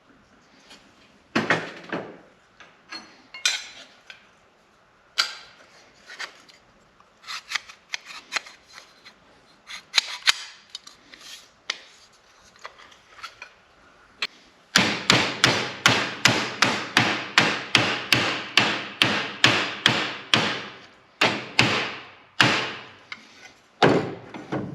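Hammer striking sheet steel: scattered single blows, then about halfway a fast even run of about three blows a second, and a few more blows near the end. The sheet-metal tabs of the door hinge plate pocket are being folded over to form a cup that holds the plate.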